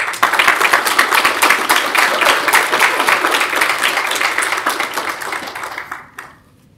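Audience applauding, the clapping tapering off and dying away about six seconds in.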